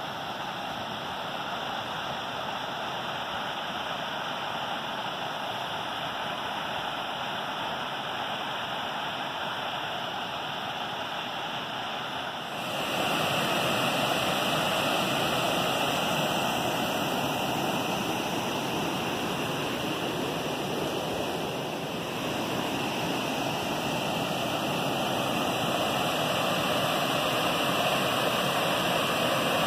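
Water rushing over a rock slab at the top of a waterfall, a steady rushing noise. About 13 seconds in it gives way to a louder, fuller rush of a waterfall pouring into the pool below.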